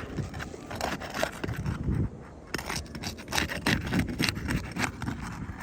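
Asphalt roof shingles being pried up, their sealant strips breaking loose with irregular scraping and crackling clicks.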